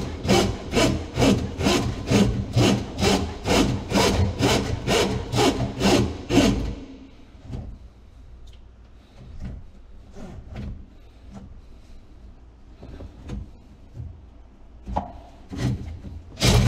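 Drain snake cable turning in the drain line, rasping in a steady rhythm of about two to three strokes a second over a low motor hum. About seven seconds in the rasping stops, leaving faint scattered clicks and ticks, and it starts again near the end.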